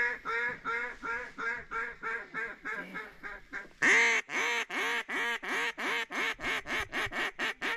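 Mallard duck call blown by a hunter: a long, even run of hen quacks, used to pull ducks in. A second, louder run starts about four seconds in and quickens toward the end.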